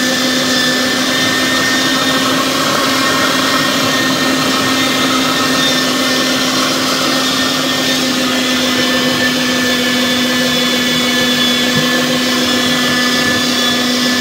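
Electric meat grinder with a juicer attachment running steadily, a constant motor hum, as tomatoes are pushed through it and pressed into juice.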